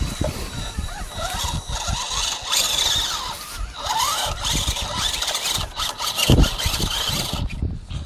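Radio-controlled scale rock crawler's electric motor and geared drivetrain whining as it crawls over rock, the whine wavering up and down in pitch, over an uneven low rumble.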